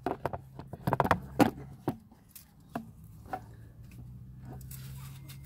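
Light knocks and clicks of a ribbed drive belt and hands working around the engine's pulleys: a quick cluster in the first two seconds, then a few scattered taps, over a steady low hum.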